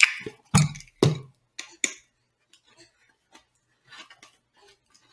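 Clicks, knocks and small scrapes as the end cap of a cardboard mailing tube is picked at and pried open. A few louder knocks in the first second or so, then fainter scattered clicks.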